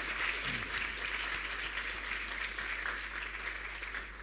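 Audience applauding steadily at the end of a lecture, tapering off slightly near the end.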